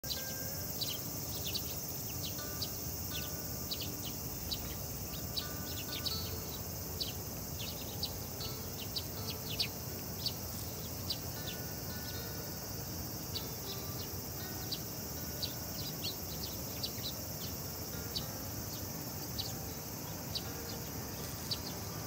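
Eurasian tree sparrows chirping: many short, sharp chirps, scattered throughout, over a steady high-pitched insect drone and low background hum.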